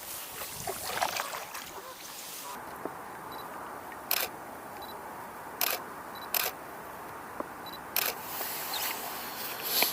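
Single shutter releases of a DSLR camera, about five sharp clicks a second or more apart, several shortly after a faint high beep.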